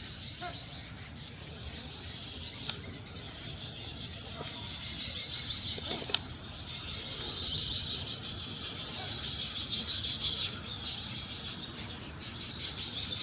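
Insects trilling steadily at a high pitch, with a second, lower chorus swelling and fading in the middle and near the end; one sharp tick about six seconds in.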